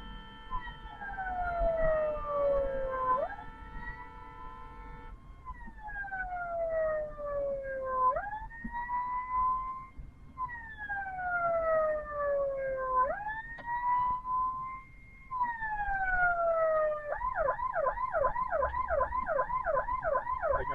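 Ambulance siren sounding a slow wail that falls and rises every few seconds. For the first few seconds a steady blaring tone sounds over it, and near the end it switches to a fast yelp of about three to four sweeps a second.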